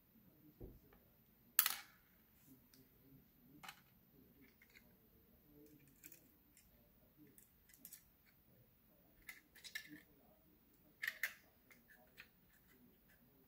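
Scattered small clicks and taps of a new SSD being handled and fitted into a laptop's drive bay, the sharpest about a second and a half in, with a quick cluster later and a double click near the end.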